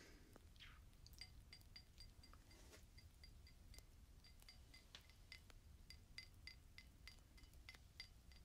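Faint, quick light tapping on a glass: small clinks that each ring at the same pitch, a few every second, starting about a second in.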